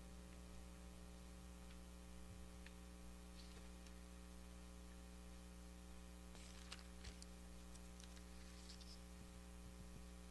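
Near silence: room tone with a steady faint hum and a few soft clicks and rustles.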